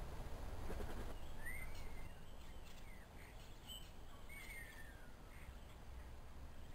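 Two short bird calls, each rising and then falling in pitch, about three seconds apart, with a few faint chirps between them. A low steady outdoor rumble sits underneath, and there is a brief rustle in the first second.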